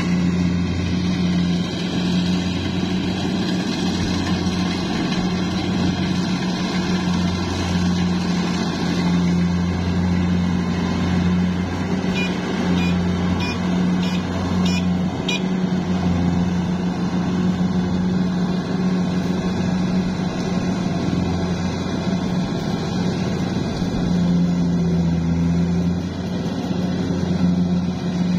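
Diesel engine of a Kubota DC70 Plus combine harvester running steadily under harvesting load, a constant low drone. A short run of light clicks comes about halfway through.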